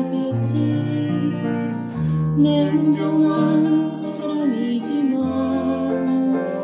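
A slow ballad played on a digital piano along with a backing track. Held bass notes change every second or two under a melody that slides in pitch about four and a half seconds in.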